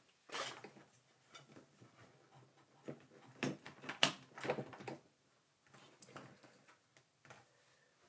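Handling noises as hands fit a small black part to the foot of an aluminium extrusion frame: irregular rubs, scrapes and clicks, the sharpest click about four seconds in.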